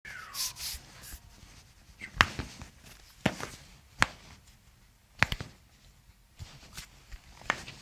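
Sharp cracks of foot joints popping under a chiropractic adjustment, a handful of them a second or so apart.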